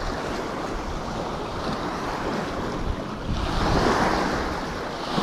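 Small waves washing over a rocky shoreline, with wind rumbling on the microphone; a wave surges in louder about three and a half seconds in.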